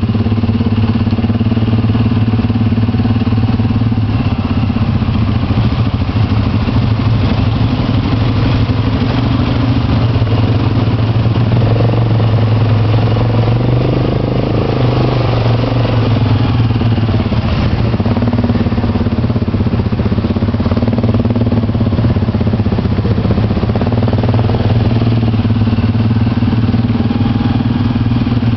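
ATV engine running steadily under way, heard close up from the quad being ridden, with its pitch shifting for a few seconds about halfway through as the throttle changes.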